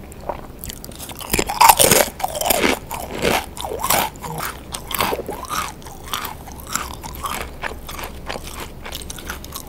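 Close-miked bite into a Pringles potato crisp, with the loudest crunch a little over a second in. Crunchy chewing follows and thins out over the second half.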